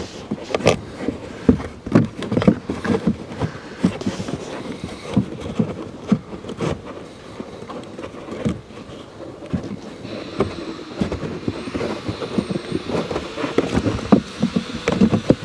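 New pleated carbon cabin air filter being pushed and worked into its plastic housing behind the glovebox: irregular rustling, scraping and clicking of the filter frame against the housing.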